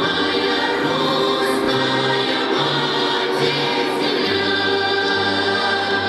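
Russian traditional folk ensemble singing in chorus, many voices on long held notes with a lower line beneath that shifts pitch every second or so.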